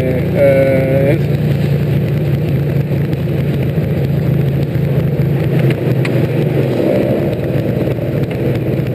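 Steady engine and road noise inside the cabin of a DeLorean DMC-12 on the move, its V6 holding a low, even drone that eases off about six and a half seconds in.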